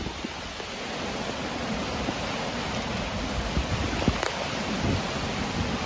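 Steady rushing hiss of wind-driven rain and heavy surf, with wind buffeting the microphone in a low rumble.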